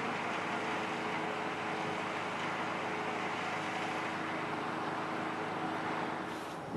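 A CSX freight train's diesel locomotives approaching from a distance: a steady drone with several low engine tones held throughout.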